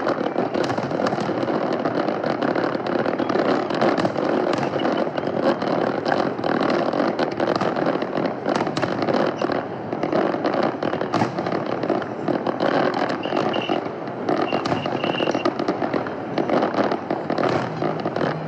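A fireworks display: a continuous dense crackling, with many sharp bangs from shells and crackling fountains going off one over another.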